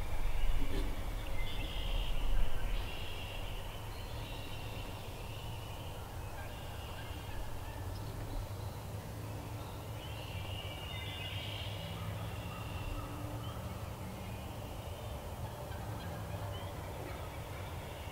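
Wild turkey gobbling in the first few seconds and again about ten seconds in, over a low rumble that eases after the first three seconds.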